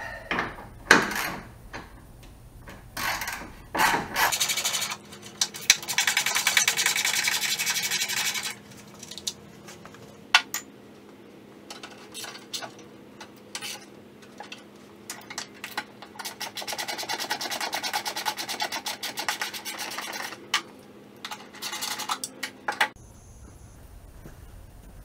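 Ratchet wrench clicking in quick runs as 10 mm bolts are backed out, with a few sharp knocks and clanks of metal tools first.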